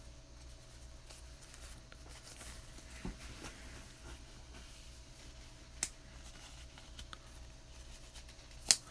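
Quiet tabletop handling in a small room over a steady low hum, with a few sharp isolated clicks, the loudest near the end.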